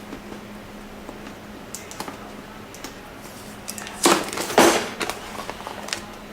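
Hands unpacking a motherboard box: light taps and rustles of cardboard and packaging, with a louder crinkling scrape about four seconds in. A faint steady hum runs underneath.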